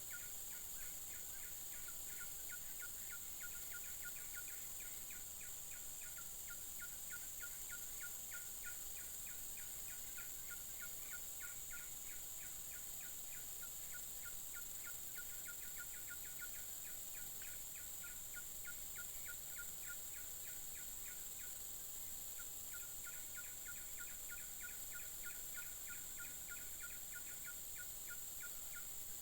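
Wild animal chorus by the river: a steady high-pitched insect-like drone under a fast, even train of short calls, about five a second, that stops briefly about 22 seconds in and then resumes.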